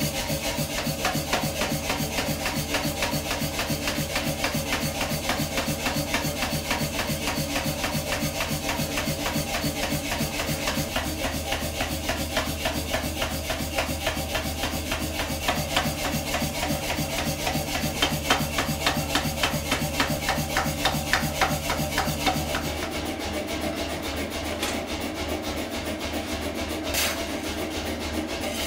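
Power hammer striking rapidly and evenly on the red-hot end of a steel pipe, forging it down. The blows stop about 22 seconds in, leaving a steady rush from the coal forge and a few sharp clicks.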